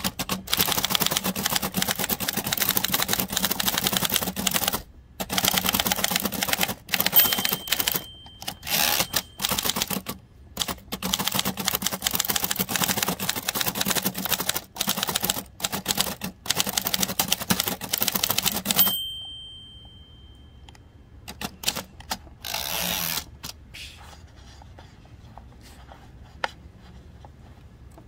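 Fast typing on a 1925 Remington Model 2 portable typewriter: a rapid clatter of typebars striking for about nineteen seconds with a few short pauses, and the bell ringing briefly twice. After that come a few scattered clicks and one short rasping burst.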